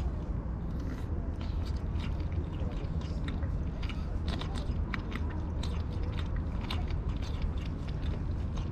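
Tabby kitten lapping water from a stainless steel bowl: quick small wet clicks of the tongue, about three to four a second.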